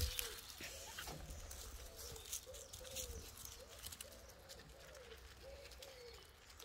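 A dove cooing steadily in a repeated phrase of short, low, rising-and-falling notes, with faint rustling and ticking in the leaves.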